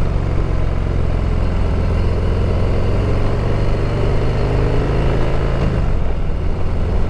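Harley-Davidson V-twin engine running steadily at riding speed, with wind noise over it.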